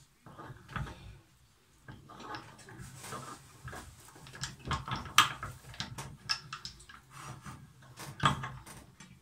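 Hand-cranked metal meat grinder crushing walnuts: irregular cracking and clicking as the nuts are forced through. Louder knocks come about five and eight seconds in.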